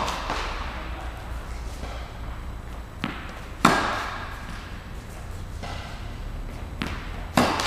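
Tennis rally: a tennis ball struck by a racket with sharp, echoing hits about three and a half seconds in and again near the end. Each hit comes with a lighter bounce of the ball about half a second before it.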